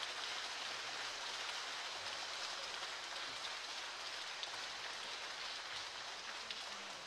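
Audience applauding steadily, a dense patter of many hands clapping, easing off slightly near the end.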